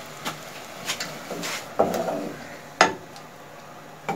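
A wooden spatula knocking and scraping against a metal cooking pot as chicken pieces are stirred. Several separate knocks and a short scrape, the sharpest knock about three seconds in.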